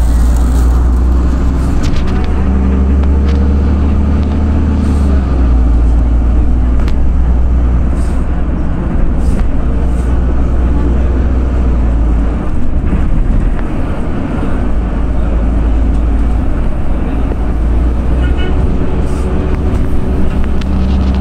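Steady low rumble of a moving bus, engine and road noise, heard from inside the passenger cabin, with a few faint clicks and rattles.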